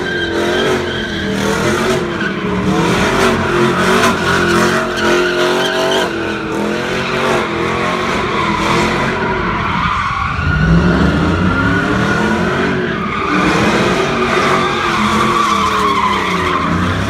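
A GMC Sierra single-cab pickup doing donuts: its engine revs up and down while the rear tires squeal and skid on the asphalt. The revs dip briefly midway and climb again.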